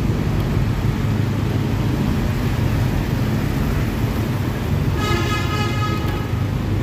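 Steady low rumble of motorbike engines and tyre noise in dense scooter traffic, heard from a moving motorbike. About five seconds in, a vehicle horn sounds for a little over a second.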